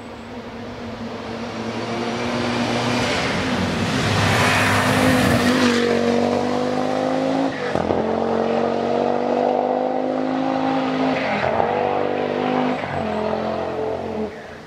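Audi Quattro rally car's turbocharged five-cylinder engine at full throttle, coming close past on gravel with stones and grit spraying from the tyres. It then accelerates away, the engine note climbing and breaking off at several upshifts before fading near the end.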